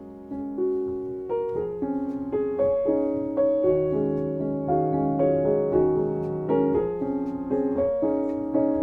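Soft piano music: a slow melody of single struck notes that ring and fade, with some quickly repeated notes about two seconds in and again near the end.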